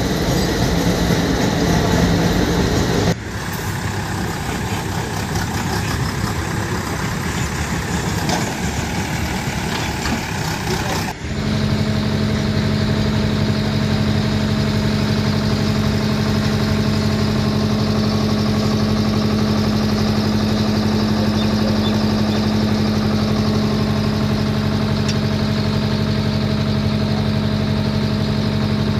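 Diesel excavator engines running, with the sound changing abruptly about three and eleven seconds in; after the second change one engine runs steadily at a constant speed.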